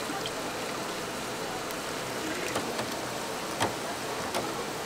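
Hot oil sizzling steadily as food deep-fries, with a couple of sharp crackles near the end.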